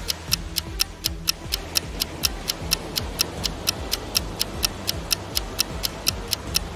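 Countdown timer sound effect: a clock ticking steadily, about four ticks a second, over a faint low background.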